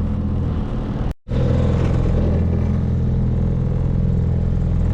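Small 3.3 hp Mercury outboard motor running steadily at slow speed, pushing the boat along. The sound breaks off for a split second about a second in, then carries on unchanged.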